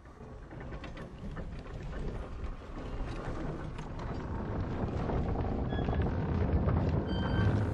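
Background music build-up: a noisy swell with no clear notes that grows steadily louder, leading into the music's steady notes at the very end.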